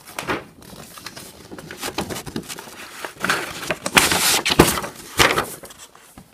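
Paper rustling and handling noises as a folded poster sheet is turned over, with scattered sharp crackles. The loudest rustles come about four seconds in and again just after five seconds.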